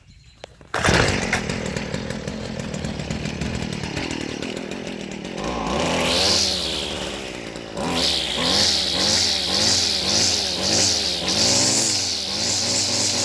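Stihl FS 56 RC string trimmer's two-stroke engine catching about a second in and idling, then revved up, and from about eight seconds in blipped up and down about twice a second. It revs cleanly without bogging, the sign that cleaning the clogged spark arrestor screen and air filter has cured its low power: "good as new".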